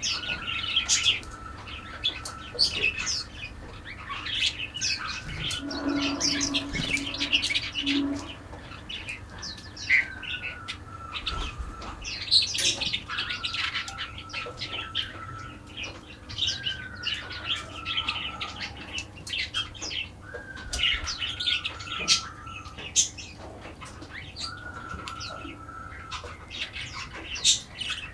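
Several birds singing at once: many quick high chirps and trills, with one bird repeating a level whistled note about a second long every few seconds.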